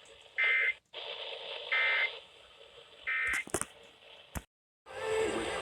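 Emergency Alert System end-of-message tones: three short, identical buzzy SAME data bursts about a second and a half apart over radio hiss, marking the end of the alert. A few clicks follow, then the audio cuts out abruptly.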